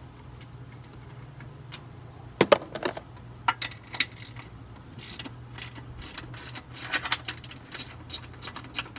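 Metal clinks and rattles of a socket wrench and the loose 13 mm upper strut bolts being taken out. The clinks come in scattered clusters, the loudest about two and a half seconds in, over a steady low hum.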